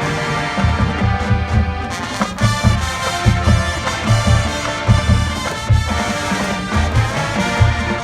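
Marching band playing its competition field show: brass sustaining chords and moving lines over steady low drum hits.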